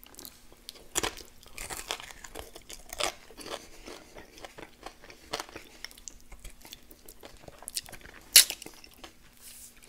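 Close-up chewing and crunching of crispy, deep-cooked chicken wings, with irregular crackles and wet mouth smacks. The loudest sound is a sharp smack about eight seconds in as fingers go to the lips.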